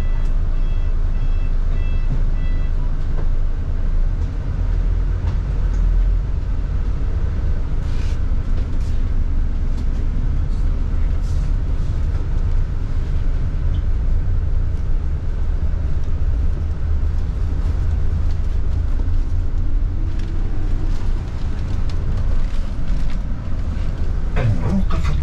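Bus engine and road noise heard from inside a moving bus: a steady low rumble. A repeated electronic beeping sounds at the start and stops after about two and a half seconds.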